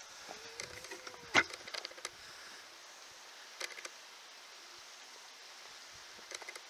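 Footsteps and loose stones clicking and knocking on stone rubble, with one sharp knock about a second and a half in and a few more small clusters of clicks later, over a steady faint hiss.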